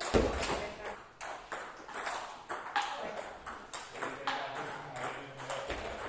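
Table tennis rally: the ball clicks off the bats and the table in a quick steady run, about two or three hits a second, as a long-pimple (Giant Dragon Meteorite) chopper returns an opponent's attacking strokes.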